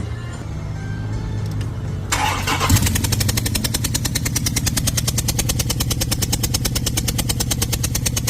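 Music, then about two seconds in the starter begins cranking the 5.7 HEMI V8 over in an even, rapid rhythm, as for a compression test. Cylinder 3 is the one under test and reads zero compression.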